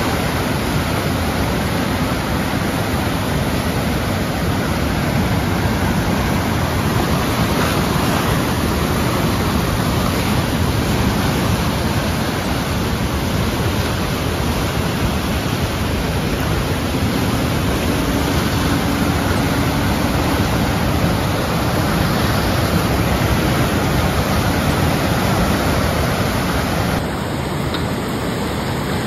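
The Canisteo River in flood, fast muddy water rushing and churning in a steady, loud wash of noise. It turns slightly quieter near the end.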